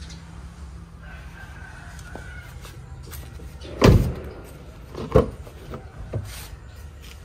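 Chickens calling: a faint drawn-out call early on, then two loud, short squawking calls about four and five seconds in and a smaller one just after, over a steady low hum.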